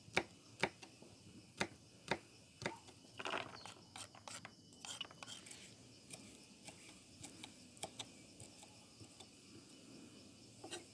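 Knife chopping garlic on a cutting board: irregular sharp knocks, several strong ones in the first three seconds, then lighter, sparser taps.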